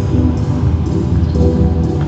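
Music with a steady beat, about two beats a second, over sustained low tones.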